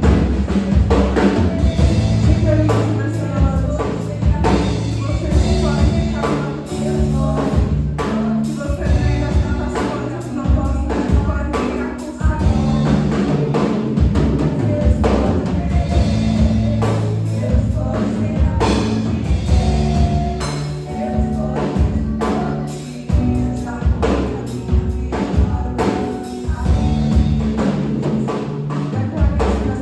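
Live worship band playing, with drum kit, bass and singing.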